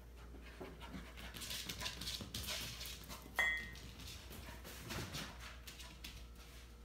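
Samoyed puppy panting in quick rhythmic puffs. About three and a half seconds in there is a sharp click with a brief high ring, the loudest sound, followed by a few soft knocks.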